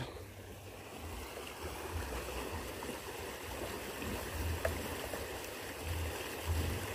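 Quiet open-air ambience: a steady faint rushing hiss over an uneven low rumble, with one faint click about four and a half seconds in.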